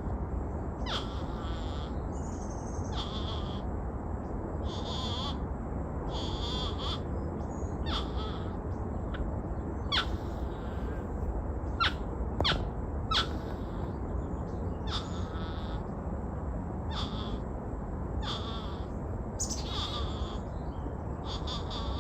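Two North American porcupines calling to each other: short, high, whining cries repeated every second or two, with a few sharp clicks in the middle.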